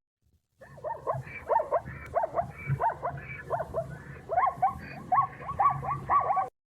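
Plains zebra calling: a rapid series of short, high barking yelps, starting about half a second in and running in quick bursts until just before the end.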